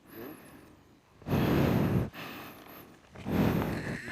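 Two heavy breaths close to the microphone, each a short rush of air, about two seconds apart.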